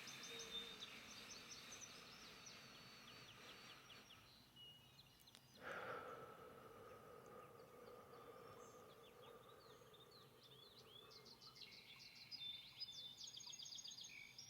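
Faint forest ambience with small birds chirping and trilling. About halfway through, a faint tone comes in suddenly and slowly sinks in pitch.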